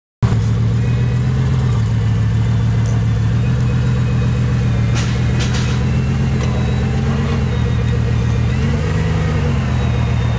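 Bugatti Veyron's quad-turbo W16 engine idling steadily, with a slight brief rise in revs about nine seconds in and a few light clicks around five seconds in.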